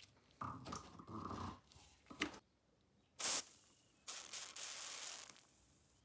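The rusty ratchet mechanism of an antique ratchet screwdriver creaks and squeals as its handle is twisted, twice in the first second and a half. After that comes a sharp click, a short loud noise burst just after three seconds, and a hiss lasting about a second.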